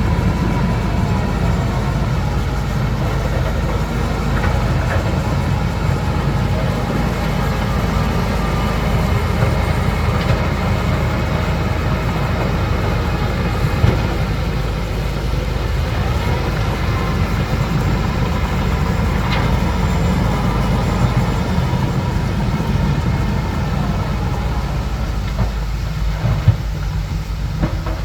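Bulldozer's diesel engine running steadily with the clatter of its steel tracks, and a few sharp clanks, one about halfway through and more near the end.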